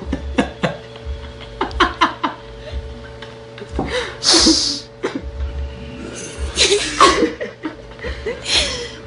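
People laughing and chuckling in short, irregular bursts, with a breathy burst about four seconds in, over a steady faint hum.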